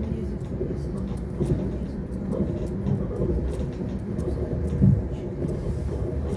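Lastochka electric train under way, heard from inside the carriage: a steady low rumble from the running gear with occasional knocks of the wheels on the track, one louder knock about five seconds in.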